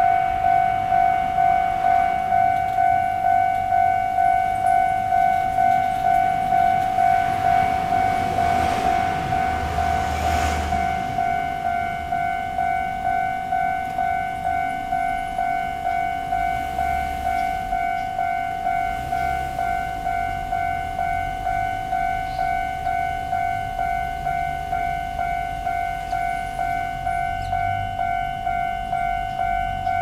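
Railway level-crossing warning bell ringing in even, repeated strokes, just under two a second. A brief rushing noise swells and fades about nine to eleven seconds in.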